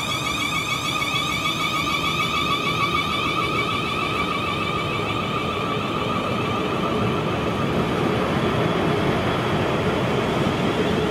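Class 450 Desiro electric multiple unit pulling away from the platform, its traction motors whining with a slowly rising pitch as it gathers speed, over the rumble of wheels on the track.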